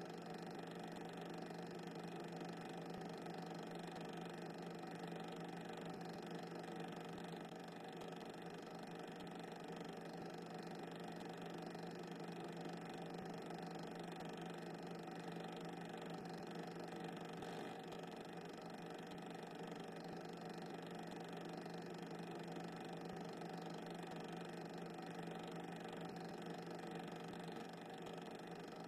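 Faint steady hum with hiss that never changes, with no distinct events.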